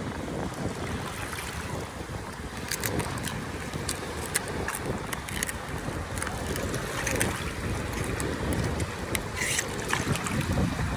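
Wind buffeting the microphone over shallow water lapping at the shore, with a few sharp clicks through the middle and latter part.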